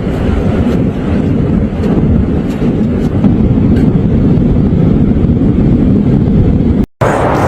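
Loud, steady low rumbling noise with no distinct tone. Near the end it cuts out suddenly and gives way to a brighter, hissier noise.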